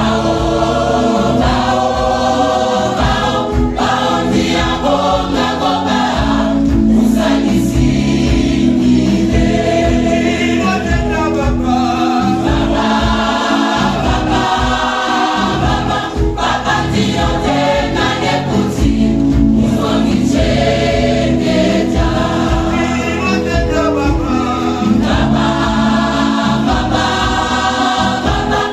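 Mixed church choir of women's and men's voices singing a gospel song together in harmony.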